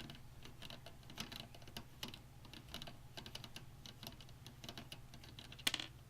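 Light, irregular clicks and taps of small plastic and metal PC-case parts being handled and fitted, with a louder clatter near the end, over a low steady hum.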